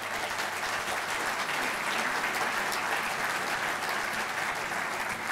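An audience applauding steadily in a hall.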